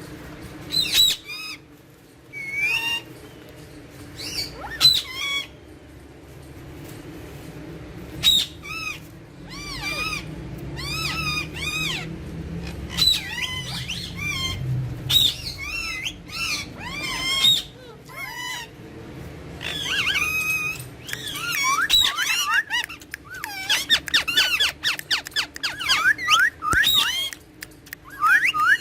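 Alexandrine parakeets calling: separate squawks and chirps at first, then a quick, dense run of chattering calls from about twenty seconds in.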